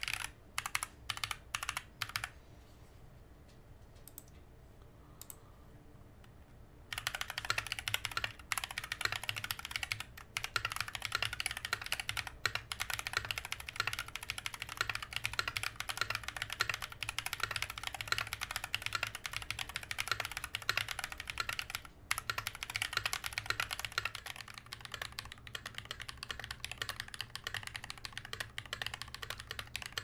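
Fast typing on a Novelkeys NK87 aluminum-case mechanical keyboard with Glorious Panda tactile switches and GMK keycaps: a dense, continuous run of key clicks. A few short bursts of keystrokes come first, then a pause of about four seconds, and typing resumes steadily about seven seconds in.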